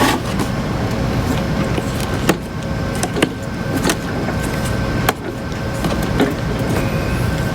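Plastic control knobs being pulled off an oscilloscope's front panel: about half a dozen sharp clicks and snaps, roughly a second apart, over a steady background hum.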